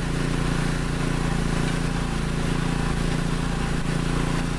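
An engine running steadily, under a continuous hiss of water spraying from a broken, still-pressurised water main.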